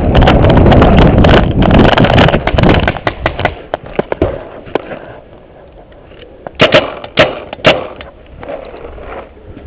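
Head-mounted camera jolting through a run, with a loud rush of rustling and footfalls for about three seconds. A few seconds later come three sharp cracks about half a second apart, typical of paintball marker fire.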